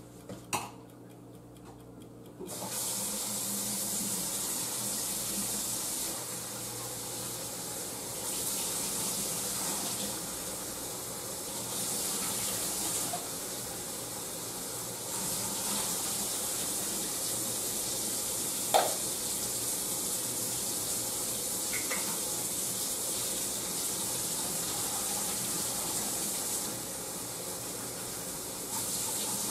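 Kitchen faucet running into a sink while canned green beans are rinsed under it. The flow starts about two seconds in and its strength shifts now and then, with a single brief clink about two-thirds of the way through.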